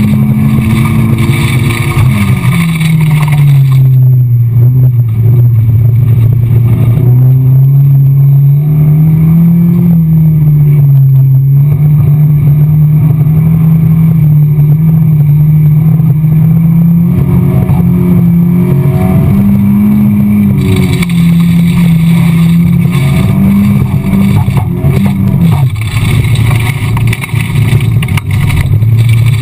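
Race car engine heard from inside the stripped, caged cabin, running loud and hard under load. The engine note drops a few seconds in, climbs back and holds fairly steady, then dips again near the end as the driver lifts off and gets back on the throttle.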